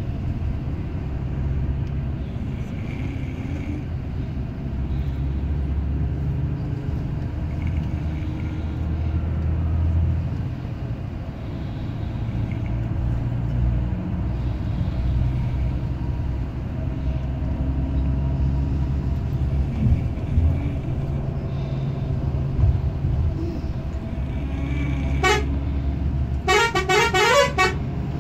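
Steady low drone of a bus engine and road noise, heard from inside a moving bus. Near the end a horn blasts briefly, then a rapid pulsing multi-tone horn sounds for about a second.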